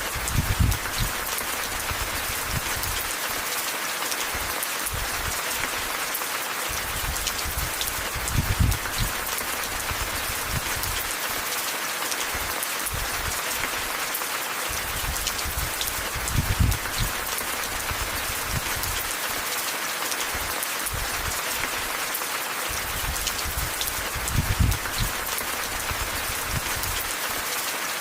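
Steady rain falling, a dense hiss of many small drop ticks. A brief low rumble swells four times, about every eight seconds.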